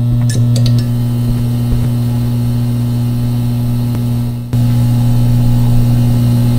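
Steady low electrical hum of a retro desktop computer, a sound effect. It breaks off for an instant about four and a half seconds in and carries straight on.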